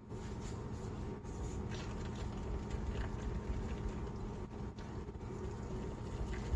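Wire balloon whisk beating a wet, yeasty batter in a glass bowl as flour is worked in, a steady wet churning that starts right at the beginning.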